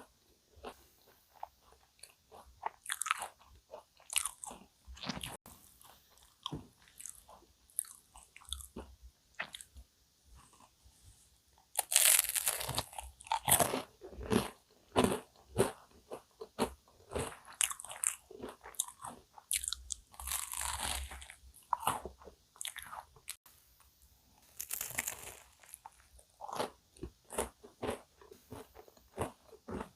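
Close-up eating sounds of a cookie choux cream puff: the crisp cookie crust crunching under repeated bites, with chewing in between. The loudest run of crunching comes about twelve seconds in.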